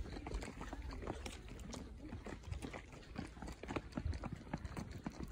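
Footsteps of a person walking on a paved path, about two steps a second, over a low steady rumble of wind and phone handling.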